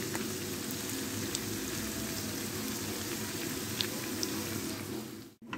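Sliced onions frying in oil in a pan over a medium flame: a steady sizzle with a few faint pops as they are browned for a tempering. It cuts off abruptly near the end.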